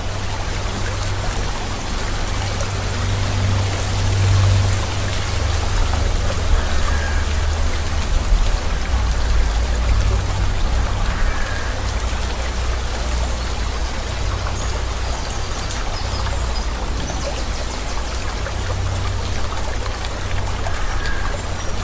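Steady rain, an even hiss of falling water, with a continuous low rumble beneath it.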